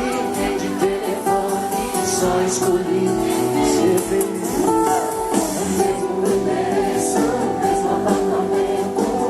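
Live sertanejo pop music: a band with strummed guitar playing while a song is sung.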